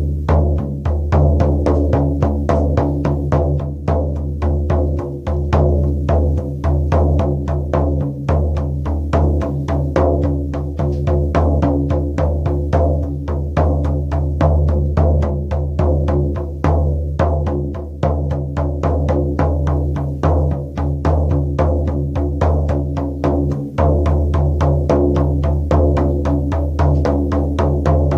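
Shaman frame drum beaten in a fast, steady rhythm, about three to four deep, booming strikes a second.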